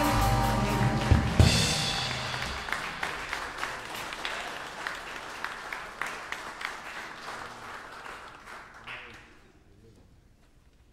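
A live jazz band's closing chord on piano, bass, guitar and sax, cut off with two drum hits about a second in. Audience applause follows and dies away over the next several seconds.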